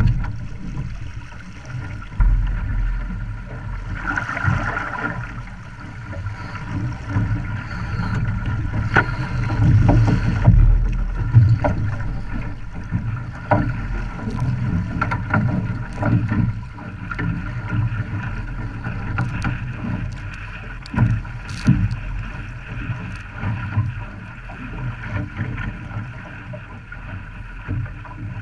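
An OK Dinghy under sail, with water rushing and splashing against the hull and wind buffeting the microphone in a steady low rumble. Short knocks and splashes come through it again and again.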